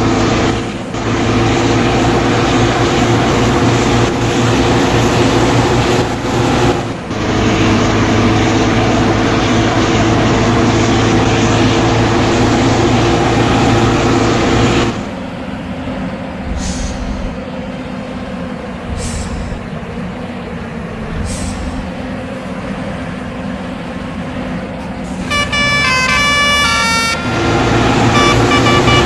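Large bus's diesel engine running loudly and steadily, dropping abruptly to a lower rumble about halfway through, with a few short hisses. Near the end, a multi-tone musical 'telolet' bus horn plays a quick tune of stepping notes.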